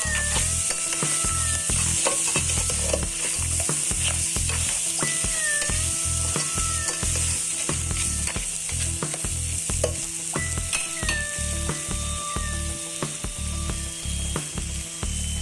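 Crabs sizzling as they fry in a pan: a steady hiss with scattered light clicks and scrapes, over background music with a steady low beat.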